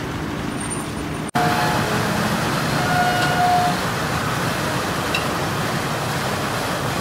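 Steady background with a low hum, cut off about a second in by louder churning water: a vessel's propeller wash surging and splashing against its hull beside a dock, with its engine running underneath.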